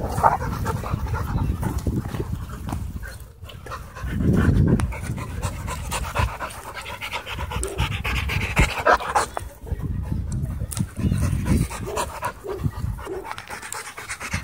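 A dog panting close by, open-mouthed after rough play, over a low rumble.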